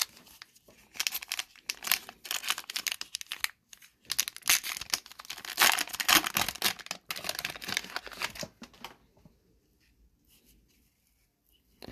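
Foil wrapper of an Upper Deck hockey card pack being torn open and crinkled, two stretches of crackling tearing that stop about nine seconds in.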